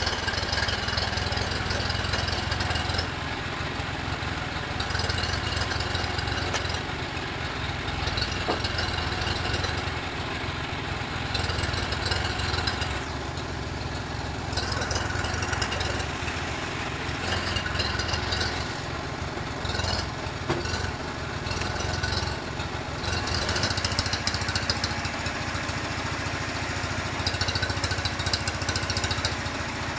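Sawmill machinery running steadily: a low engine-like drone with a higher hiss that drops away and returns several times.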